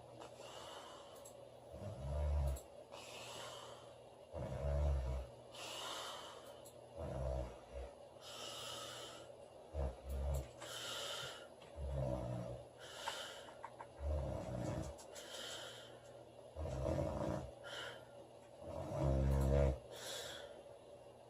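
A woman snoring in her sleep: a deep rattling snore about every two and a half seconds, with airy breathing between the snores.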